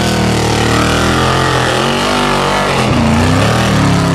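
Formula Offroad car's engine running flat out as it climbs a steep dirt hill. The pitch wavers throughout, dips about three seconds in, then climbs again.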